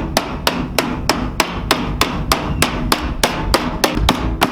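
Hammer striking the bent-out lip of a metal siding panel in a steady rhythm, about three blows a second, each with a short ring, forming the lip back into shape.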